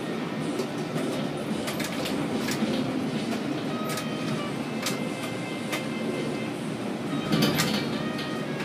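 Container gantry crane machinery running with a steady rumble, with scattered clicks and knocks, the loudest cluster about seven and a half seconds in.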